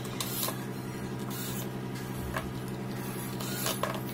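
Light clicks, knocks and brief rustles of hands handling a cordless drill and a plastic strapping tool on a workbench, over a steady low hum.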